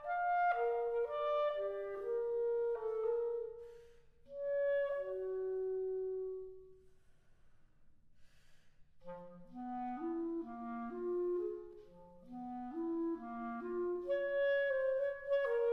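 Unaccompanied B-flat clarinet playing a run of notes, then a long held note that fades away about seven seconds in. After a pause of about two seconds, a quicker passage follows, leaping back and forth between low and higher notes.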